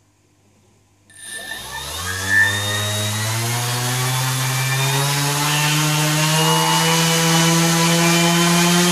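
NTM brushless quadcopter motor, fixed to a heavy piece of timber, starting about a second in, spinning up quickly with a rising whine, then running steadily at high speed with its pitch creeping slowly higher. Mounted this way, it runs without visible vibration, pointing to the frame's weak motor mounts as the vibration's cause.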